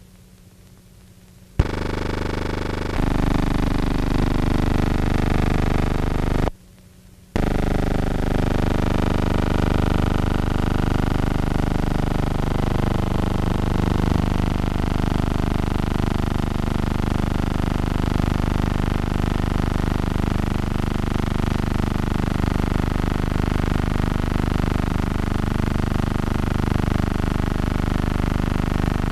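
Synthesizer drone music: a steady low hum with slowly wavering tones. It drops out briefly at the start and again about six and a half seconds in.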